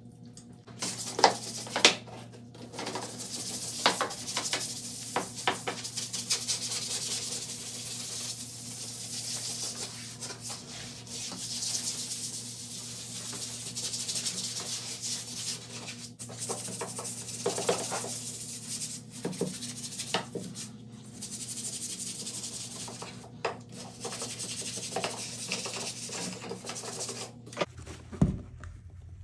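Hand scrub brush scrubbing a cream-cleanser-coated tiled bathtub ledge: a continuous bristly rubbing, with occasional sharp knocks of the brush against the tile. The scrubbing stops shortly before the end.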